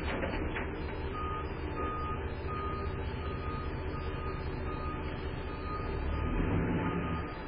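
Automated side-loading garbage truck backing up, its reverse alarm beeping steadily about one and a half times a second over the diesel engine's running. The engine rises briefly near the end.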